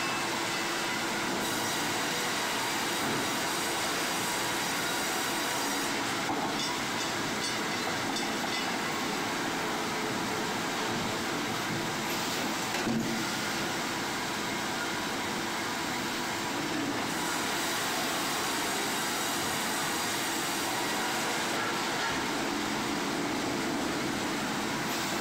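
Sawmill machinery running: a steady mechanical rumble and rattle that shifts slightly in character every few seconds, with a brief knock about halfway through.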